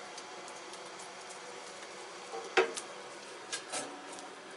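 Someone tending a newly lit forge fire: one sharp clack a little past halfway and two softer knocks about a second later, over a steady faint hiss.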